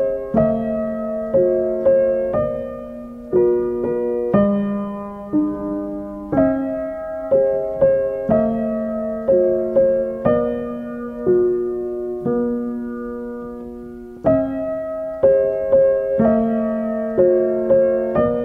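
Background piano music: a slow, gentle melody of notes and chords struck about once a second, each fading away.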